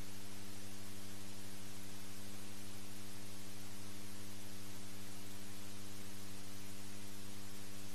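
Steady low electrical hum under a constant hiss, with nothing else heard.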